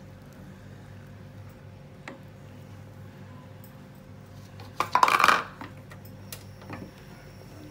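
Metal spoon stirring in a pan of milk, knocking and scraping against the pan, with a loud clatter about five seconds in and a few lighter clicks, over a steady low hum.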